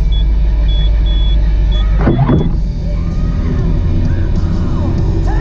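Monotracer cabin motorcycle driving, its engine and road noise a steady low drone inside the enclosed cockpit. There is a brief loud sound falling in pitch about two seconds in, and rock music from the stereo is heard over the drone in the second half.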